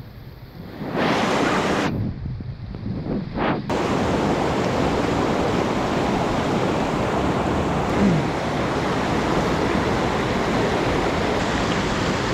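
Rushing water of a mountain creek running high, a steady dense rush. It swells about a second in, dips briefly, then holds steady and loud from about four seconds in.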